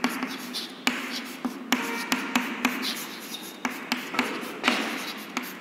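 Chalk writing on a chalkboard: irregular sharp taps as the chalk strikes the board, between short scratchy strokes.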